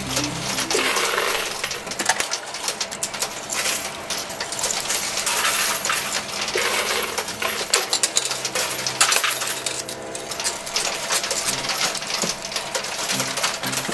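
Quarters clinking and clattering in a coin pusher arcade machine, as coins drop onto the playfield and are shoved against the piles: a busy, irregular run of metallic clinks.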